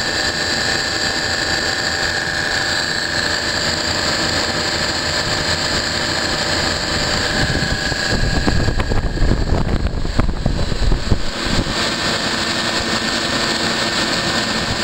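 Copeland three-phase semi-hermetic refrigeration compressors and condenser fans running, a steady machinery hum with a constant high whine. For a few seconds in the middle, an irregular low rumble swells over it and then dies away.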